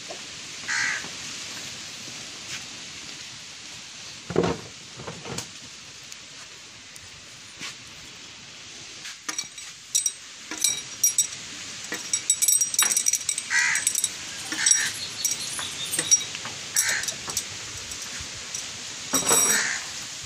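Steel spanners clinking and knocking on the opened cylinder head of an Escorts tractor engine: one heavy knock about four seconds in, then a busy run of sharp metal clinks from about halfway through. Birds caw now and then.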